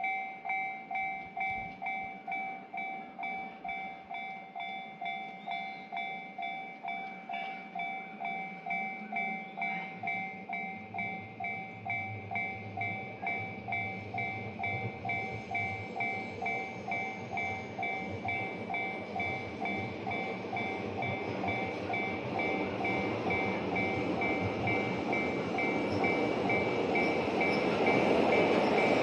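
Japanese level-crossing warning bell ringing its steady two-tone ding, about one and a half strikes a second, while a train approaches. Its rumble starts about ten seconds in and grows steadily louder toward the end.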